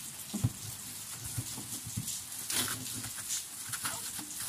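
Foil-faced bubble insulation rustling and crinkling as it is handled and pressed against the wooden wall of a small incubator, with scattered light knocks, the sharpest about half a second in.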